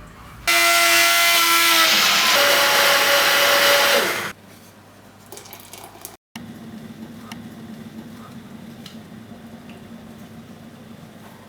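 An electric blender motor runs loudly for about three and a half seconds, with a shift in pitch partway through and a falling whine as it winds down. After a brief break, a low steady hum follows with a few faint clicks.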